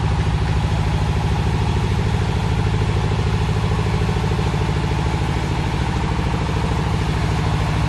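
A small engine running steadily at idle, a low, even, continuous drone with a fast regular pulse.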